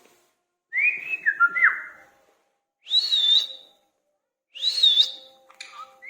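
Indian ringneck parrot whistling: a series of short whistles with brief pauses between them. The first glides and steps down in pitch, the next two are higher and steadier, and another gliding whistle starts near the end.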